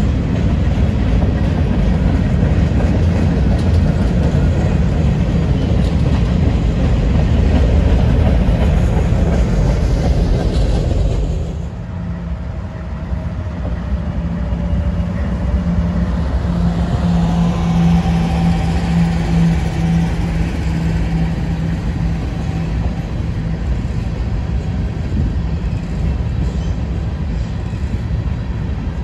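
Norfolk Southern freight train rolling past with a loud, steady rumble of wheels on rail. About eleven seconds in it drops off suddenly to a quieter rumble with a steady low hum and a faint wavering whine.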